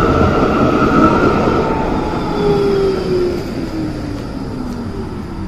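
Modern low-floor electric tram running past at a platform and slowing, its electric drive whining in several tones that fall in pitch as it decelerates, over the rumble of wheels on rail.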